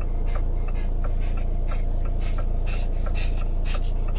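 Elderly Shih Tzu panting fast, about four short breaths a second, over the steady low rumble of a car cabin; the dog is hot and worn out.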